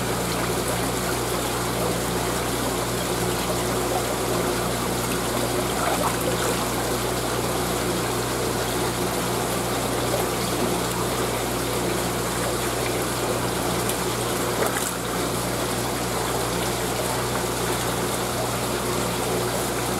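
Steady rush of water pouring and bubbling into a live-bait fish tank, with the constant low hum of the tank's circulation pump underneath.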